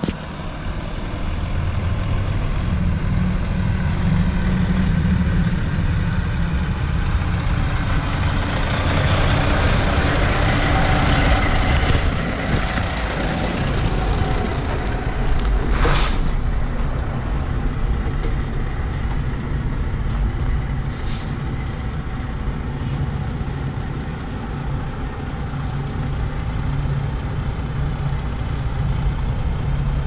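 Freightliner semi tractor's diesel engine running steadily as the truck pulls up and then backs slowly. About halfway through comes a single sharp, short hiss of air brakes, with a fainter one a few seconds later.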